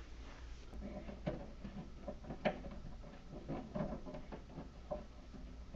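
Faint, irregular light clicks and taps of screws being fitted and driven into the front of a treadmill's motor cover, starting about a second in.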